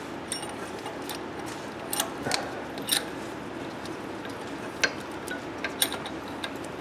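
Irregular light metallic clicks and clinks, about half a dozen, as the parts of a harmonic balancer puller are handled and fitted at an LS engine's crank pulley, over steady background noise.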